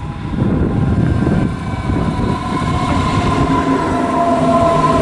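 Munich S-Bahn electric multiple unit pulling into the platform, a low rumble of wheels on rail with the electric drive's steady whine setting in and growing from about halfway through.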